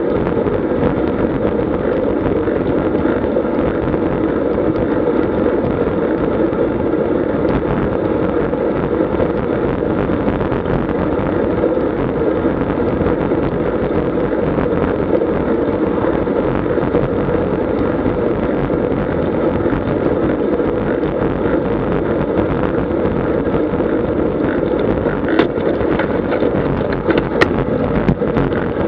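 Steady rush of wind buffeting an action camera's microphone on a road bike riding at about 35 km/h, mixed with tyre noise on the road. A few sharp clicks come near the end.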